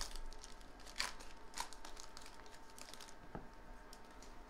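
Faint crinkling of foil trading-card pack wrappers being handled, in a few scattered soft crackles.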